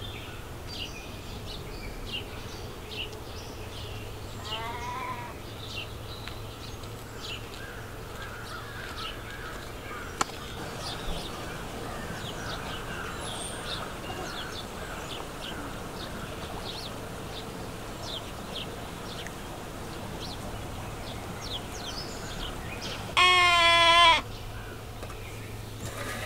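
Small birds chirping continually in quick short notes, with one longer call about five seconds in. Near the end a lamb gives one loud, wavering bleat about a second long.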